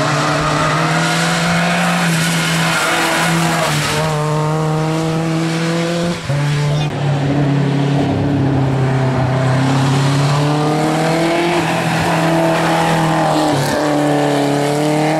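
Race car engines revving hard as the cars climb past, the pitch rising and falling with brief dips at gear changes about six seconds in and near the end.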